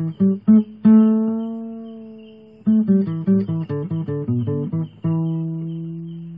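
Acoustic guitar music: quick runs of plucked notes, each run ending on a held note that rings out and fades, one about a second in and another about five seconds in.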